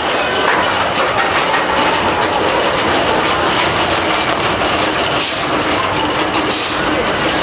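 Primeval Whirl spinning wild-mouse coaster car rolling along its steel track: a steady, loud rattling clatter of wheels and ride mechanism.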